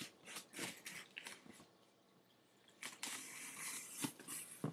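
Cardboard shipping box being opened by hand: a run of short crinkling clicks, then, about three seconds in, a longer tearing sound as the packing tape is ripped along the lid, with a couple of knocks near the end.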